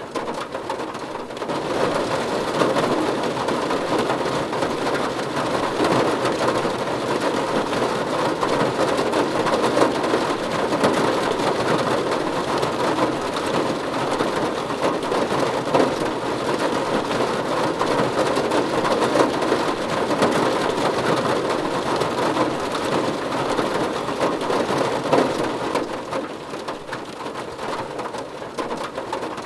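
Steady rain falling on a surface, a dense even patter that swells heavier about two seconds in and eases off again near the end.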